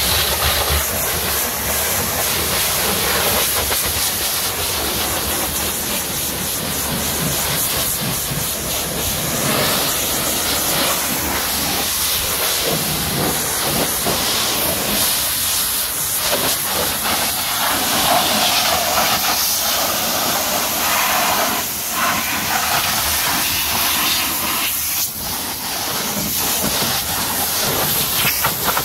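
Pressure washer wand spraying a high-pressure jet of water onto a car's body to rinse off foam. The steady hiss of the spray shifts in tone as the jet moves across the panels, wheel and windscreen.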